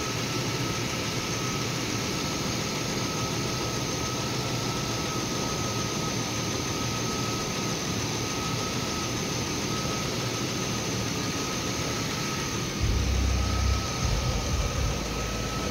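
Chevrolet Impala's 3.4 V6 engine idling steadily, with a thin constant whine over it. A louder low rumble comes in near the end.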